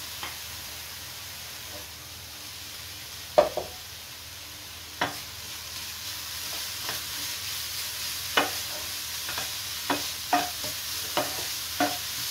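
Coconut, jaggery and cashew filling sizzling gently in a non-stick frying pan while a wooden spatula scrapes and knocks against the pan. There is a sharp knock about three and a half seconds in, which is the loudest sound, and another at five seconds as the scrambled egg is tipped in. The sizzle then grows a little, with frequent spatula knocks as the egg is stirred through over the last few seconds.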